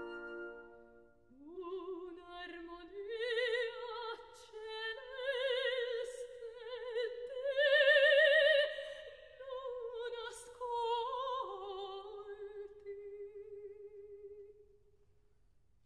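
Operatic soprano singing an unaccompanied bel canto passage with wide vibrato, entering right after a held instrumental chord breaks off. The line climbs to its loudest high phrase about eight seconds in, then descends and ends on a long held note that fades away near the end.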